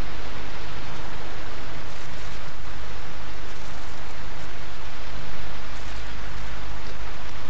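Steady rushing, hissing noise of water, even throughout, with a faint low hum underneath.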